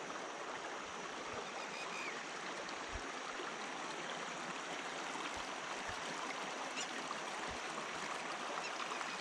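Shallow water trickling and running over rock, a steady even rushing sound.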